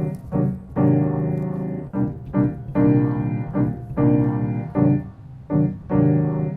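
Background piano music, with chords struck in a steady rhythm and each left to fade.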